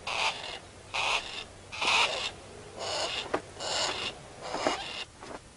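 Harris's hawk giving harsh alarm calls, six in a row about once a second, as the group goes on alert at a trespasser.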